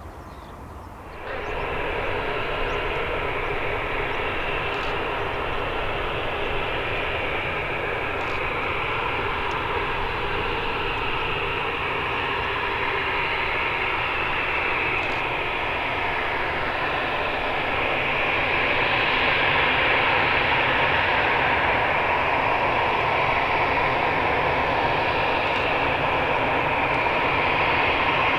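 Airbus A320 jet engines running with a steady roar and whine, growing louder about two-thirds of the way through.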